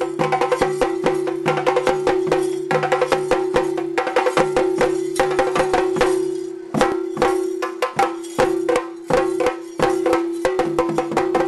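Theyyam ritual drumming: fast, dense chenda stick strokes over a steady held tone. Just past the middle the drumming breaks into a few scattered, separate strokes, then picks up its rapid beat again near the end.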